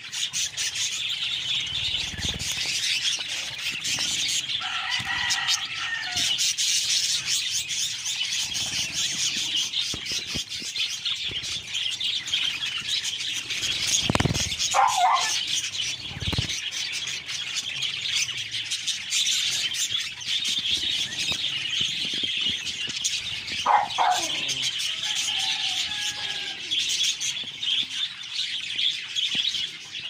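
A flock of budgerigars chattering and warbling nonstop, with now and then a louder call standing out, and wings fluttering as birds bathe in wet grass. A few dull low thuds come through.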